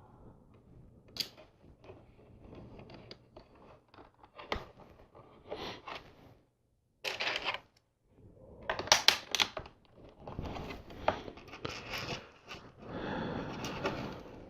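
Small plastic LEGO pieces clicking and rattling as they are picked out and pressed onto the build, with a few separate clicks at first and busier rummaging through loose parts in the second half.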